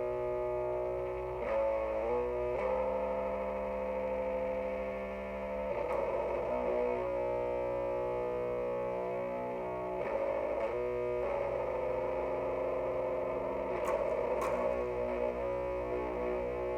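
Distorted electric guitar, a Jackson SCX 3H through an Orange Mini Crush 3-watt amp pushed by a Boss ODB-3 overdrive, playing a slow doom-metal riff. Long chords ring out for several seconds each and change only every few seconds, over a steady low hum.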